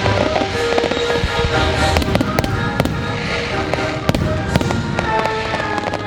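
Fireworks bursting and crackling in rapid, irregular bangs over a music soundtrack.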